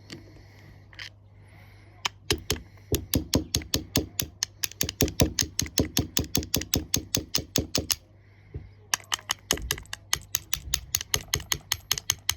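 Two runs of rapid, even clicking, about six clicks a second, from a hand tool working on a small four-stroke lawnmower carburettor. A low steady hum lies underneath.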